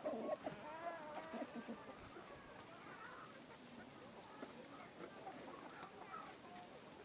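Hens clucking, several short calls rising and falling in pitch. The calls are busiest and loudest in the first two seconds, then thin out to softer, scattered clucks.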